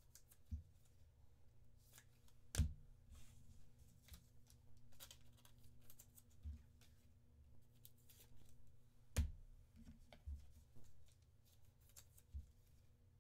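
Trading cards and rigid plastic top loaders being handled on a desk: soft rustling with scattered sharp clicks, the loudest about two and a half seconds in and again about nine seconds in. A faint steady hum runs underneath.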